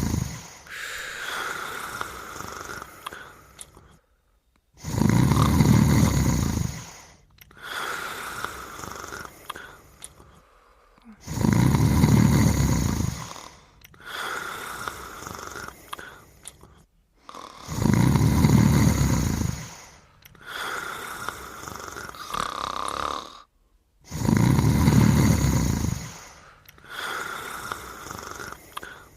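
Slow, regular snoring from a sleeper: a loud, low snore about two seconds long roughly every six seconds, each followed by a softer, higher breath with a faint whistle in it.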